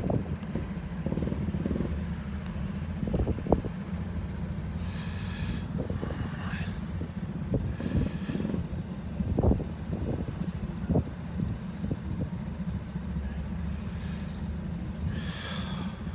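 Small kart engines running at idle on the starting grid, a steady low engine drone, with gusts of wind buffeting the microphone.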